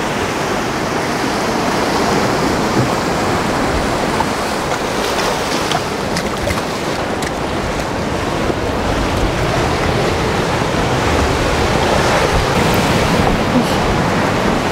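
Rough sea surf breaking against a rocky shore: a continuous rush and wash of water that swells and eases as the waves come in, growing a little louder near the end.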